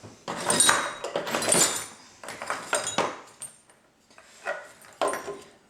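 Old metal hinges and loose hardware clinking and scraping as they are picked up and turned over, in three bouts of rattling.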